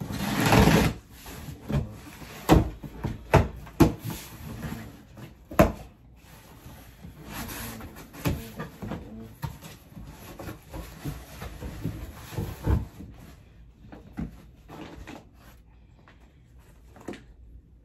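Cardboard shipping box being opened: a loud rasp of packing tape slit with a box cutter in the first second, then a series of sharp knocks and thuds with scraping and rustling as the cardboard flaps are pulled open and the packaged contents handled, growing quieter near the end.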